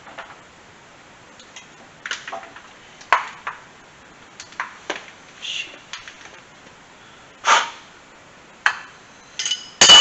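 Scattered metal clicks and clinks of hand tools and parts being handled, about a dozen short knocks spread out, with a louder clink that rings on briefly at the very end.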